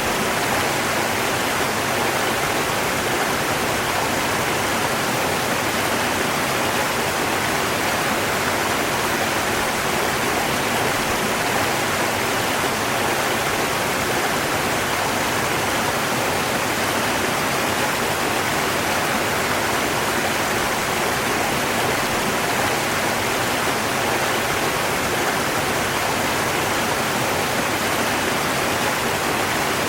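River water rushing steadily, an even hiss with no breaks or changes.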